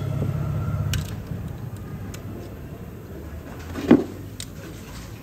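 Workshop sounds: a low, pulsing machine hum cuts off about a second in, followed by a few light clicks and one loud metallic clunk near four seconds, as tools and parts are handled around an open motorcycle clutch.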